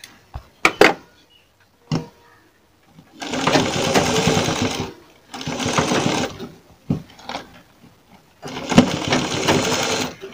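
Sewing machine stitching pearl lace onto a blouse neckline in three short runs of about two seconds each, with brief pauses between. A few short clicks come in the first two seconds.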